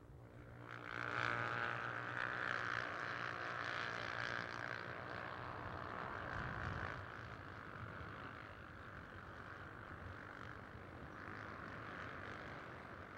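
A pack of about thirty Honda CB 300R single-cylinder motorcycles on the formation lap, their engines running together as one dense sound. It swells about a second in as the pack nears and eases off somewhat after about seven seconds.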